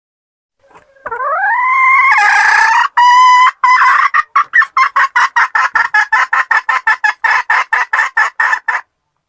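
Female red junglefowl (wild forest hen) cackling: a long drawn rising call, then a fast run of short repeated clucks, about five a second, that stops abruptly. This is the hen's cackle (putak) used as a lure call to trap wild junglefowl.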